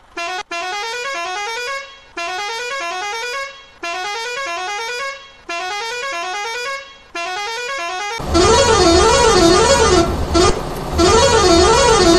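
Kerala tourist-bus musical air horn playing a short run of notes that climbs step by step, repeated about five times. About eight seconds in it changes to a louder horn whose pitch swings rapidly up and down, over a low rumble.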